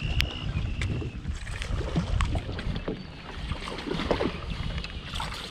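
Low wind rumble on the microphone and water lapping at a bass boat's hull, with scattered light clicks and two short high whistles in the first second.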